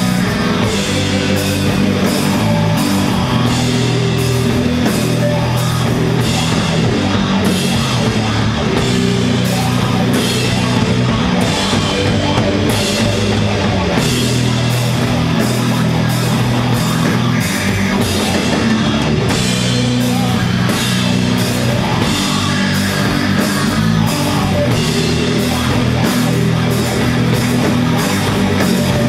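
Doom metal band playing live: heavily distorted guitars and bass holding slow, low chords over a drum kit, with cymbals struck at a steady beat.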